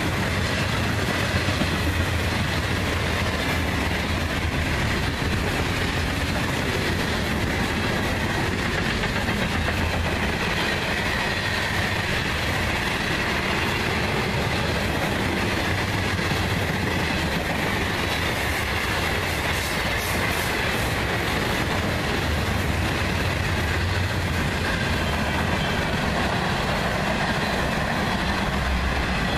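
Freight cars of a long CSX manifest train (covered hoppers, boxcars, tank cars) rolling past at track speed: steady wheel-on-rail noise with clickety-clack from the trucks and a wavering high whine running through it.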